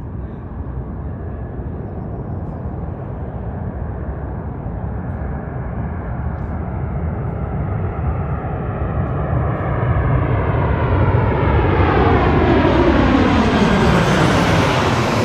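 Twin-engine jet airliner on landing approach passing low overhead. Its engine rumble grows steadily louder to a peak near the end, with a whooshing sound that falls in pitch as it comes over.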